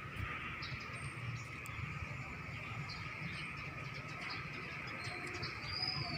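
Natural outdoor ambience: a steady chorus of insects with short, scattered high bird chirps over it and a low rumble underneath.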